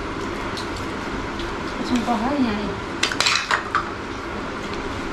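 Dishes and cutlery clinking at a meal table: scattered light clinks, with a quick cluster of clatters about three seconds in.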